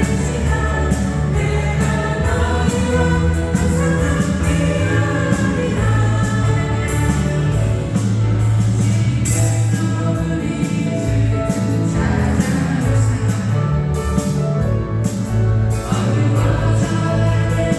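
Praise song sung by a group of voices over instrumental accompaniment with a steady bass line.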